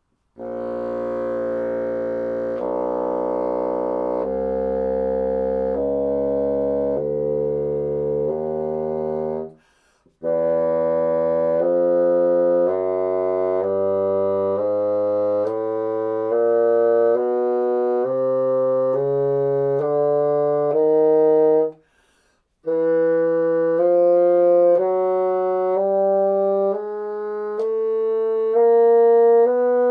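Bassoon playing a slow chromatic scale upward from the low register, one held note about a second each, in three phrases with two short breaks for breath. It is a chromatic tuning check: each note is held until it is in tune, to see where the reed sits.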